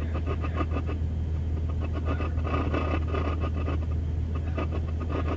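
Off-road truck engine idling as a steady low hum, heard from inside the cab. Patches of crackly higher noise come over it at the start, in the middle and near the end.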